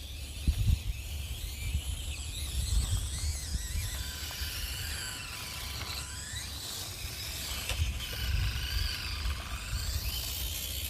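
Micro RC crawler's small electric motor and gears whining, the pitch rising and falling with the throttle, over a low rumble.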